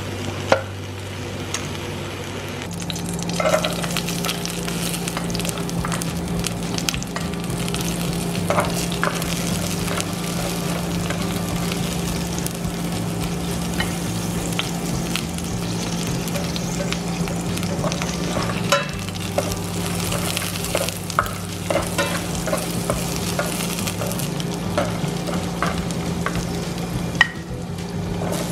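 Oil sizzling steadily as boiled pork hock pieces and then chopped garlic fry in a pan, with scattered sharp clicks and taps of a utensil against the cookware and a low steady hum underneath.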